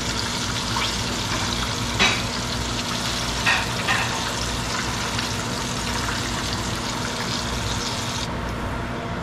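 Cornmeal-breaded fish fillets frying in hot oil in a skillet: a steady sizzle, with a few sharp clicks of a wire skimmer against the pan about two and three and a half seconds in.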